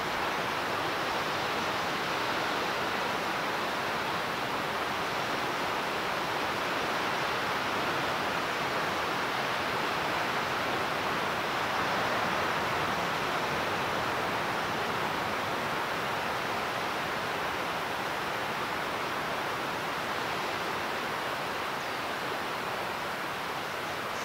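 Steady rushing outdoor noise with no distinct events: no calls, knocks or changes in level.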